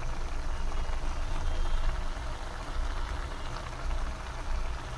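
Onion-tomato masala thinned with water bubbling steadily in a kadhai, with a low rumble underneath. It is cooked without oil or ghee, so it bubbles rather than fries.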